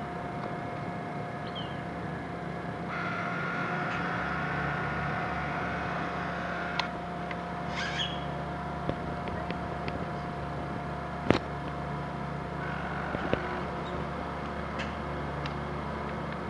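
Radio-controlled model boat's motor humming steadily, with a few short bird chirps partway through and a sharp click about eleven seconds in.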